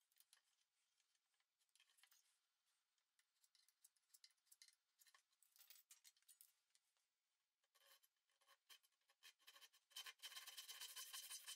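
Faint, short scraping strokes of a hand tool being worked across the edge of a wooden rail, easing the corner. About ten seconds in, much louder music comes in.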